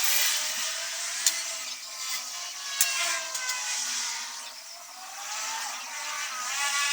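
Small electric motor running with a whine that rises and falls in pitch as its speed changes, with a few sharp clicks.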